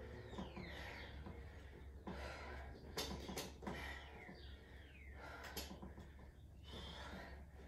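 A woman breathing hard with exertion while doing repeated split squats: short, sharp breaths roughly once a second. A faint steady low hum runs underneath.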